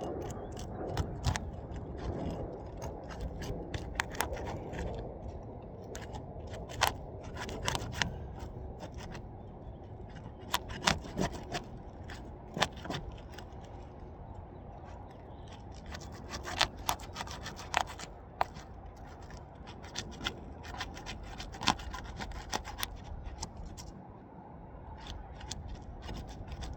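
The sealed strip of an asphalt roof shingle being gently pried apart: continuous scraping and rubbing with scattered sharp crackles and clicks as the adhesive lets go.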